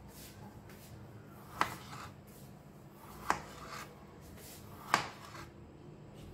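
Kitchen handling on a cutting board: three sharp clicks about a second and a half apart, with faint rubbing and scraping between them, as peeled potatoes are picked up and set down. A low steady hum runs underneath.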